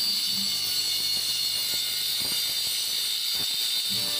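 Doliz BA730 angle grinder with a wood-cutting disc, running at speed and cutting into a thick plank of solid wood, with a steady high whine.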